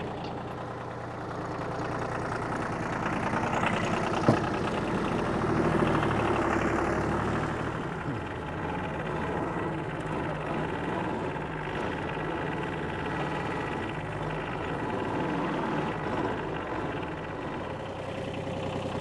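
New Holland tractor engine running steadily. It swells a little louder for a few seconds early on, with one sharp knock about four seconds in.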